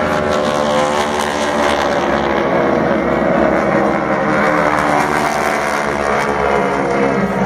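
Radial piston engines of a four-plane formation of SNJ propeller trainers, a steady drone of several engines together as the formation passes overhead.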